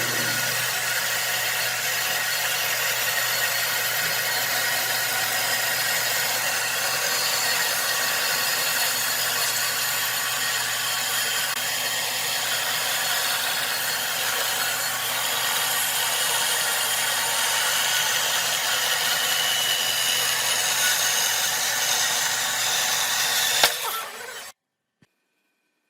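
Power tool working wood, a steady noise that runs on without a break, then stops with a sharp knock about a second and a half before the end.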